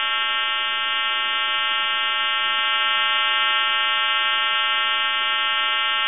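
Steady buzzing tone over a telephone line, played by a recorded time-and-temperature announcement between its spoken parts. It holds at one pitch and level throughout, with a faint crackle of line noise beneath it.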